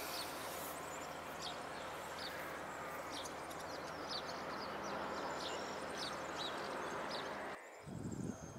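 Small birds, house sparrows, chirping in short, scattered high notes over a steady outdoor background hiss. The background noise cuts off abruptly near the end.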